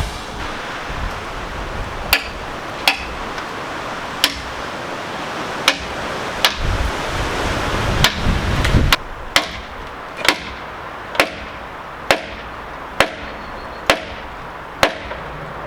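Hammer blows, sharp and ringing, over a dozen in all. They come irregularly at first, then settle into a steady rhythm of about one blow a second for the second half.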